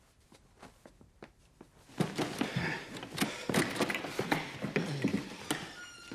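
Footsteps and light knocks, then about two seconds in a burst of hurried rummaging: clothes and bags rustling, with sharp knocks and clicks as things are tossed and shoved about on a bed. A brief high tone sounds near the end.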